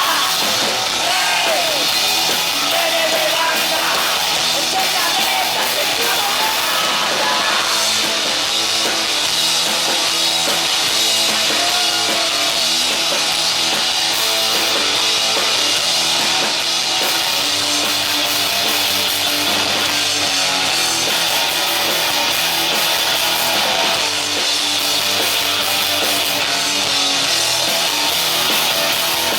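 Punk rock band playing live, loud and distorted: electric guitars and a drum kit, with a few sung lines in the first seconds.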